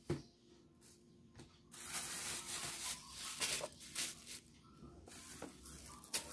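A thin plastic bag crinkling and rustling as it is handled with blocks of firm tofu inside. It starts about two seconds in, after a single light knock at the very start.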